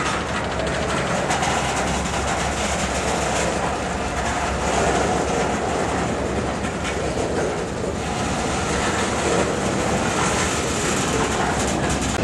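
Freight train cars rolling past at close range: a steady rumble and rattle of steel wheels on the rails, with repeated clacking over the rail joints.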